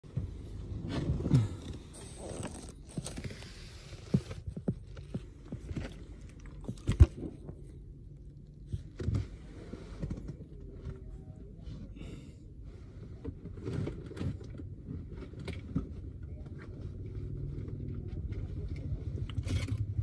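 Scattered sharp metal knocks and scrapes from work in a steel truck bed, with a stretch of hiss about two to four seconds in, over a steady low street rumble that grows louder near the end.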